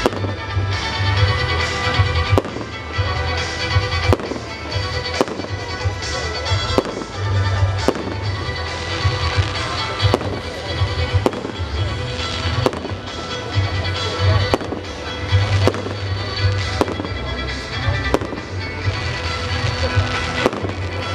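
Fireworks display: aerial shells bursting in sharp bangs, roughly one a second, over loud music with a heavy low bass.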